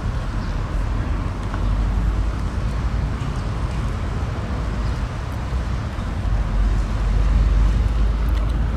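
Low, uneven outdoor rumble of road traffic, swelling twice, with a few faint clicks near the end.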